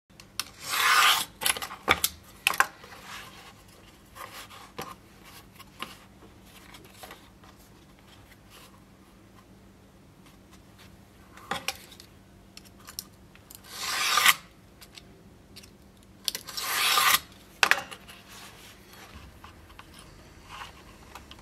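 A blade drawn through leather along a steel rule: a few short rasping strokes, one near the start and two more after the middle, with scattered taps and clicks of handling the leather and tools in between.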